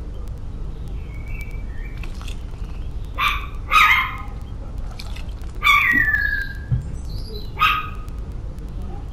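A dog barking about four times, with one bark trailing off into a falling yelp, over a steady low background rumble.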